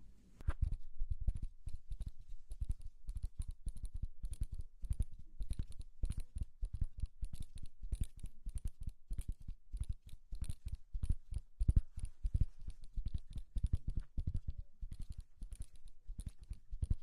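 Rapid, irregular light tapping or clicking, several sharp taps a second, pausing briefly near the end.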